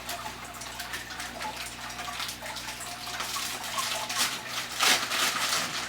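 Aquatic plants being unpacked by hand: wet wrapping crinkling and water trickling, with a run of crackles that grows louder after about four seconds in.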